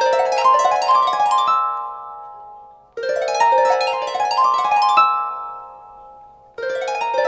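A Samsung Galaxy S4 stock tone: a quick rising run of plucked, harp-like notes that rings on and fades, looping about every three and a half seconds.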